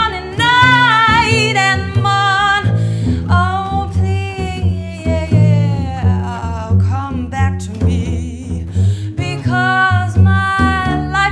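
A woman singing a blues with vibrato, accompanied by a double bass plucked pizzicato, one low note after another.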